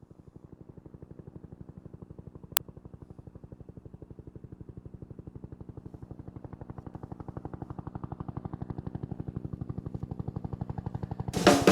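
UH-1 Huey helicopter rotor beating at an even rapid pace, about ten thumps a second, slowly growing louder as it approaches. There is a single sharp click about two and a half seconds in, and a drum kit comes in just before the end.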